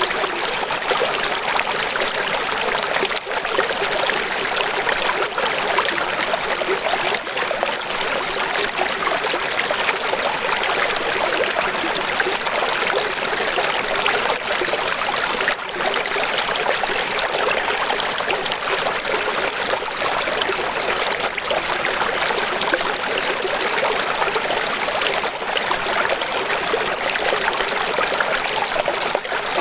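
Flowing water rushing steadily without a break: a bright, even hiss with little low rumble, like a stream or waterfall.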